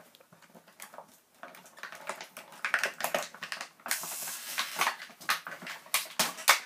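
Cardboard packaging being handled: a toy box scraping and sliding against a cardboard sleeve, with a run of crinkles and clicks that is loudest around four seconds in.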